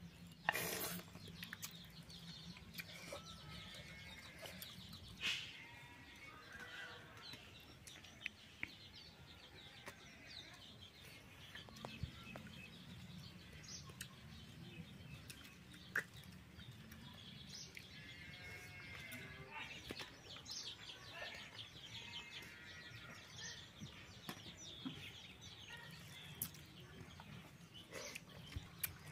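Birds calling a few times in short pitched phrases, with occasional sharp clinks and taps of steel plates and bowls, the loudest about half a second in.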